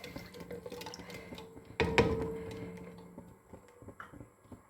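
A single knock of metal cookware about two seconds in, ringing on for about a second, with faint small clicks and taps around it.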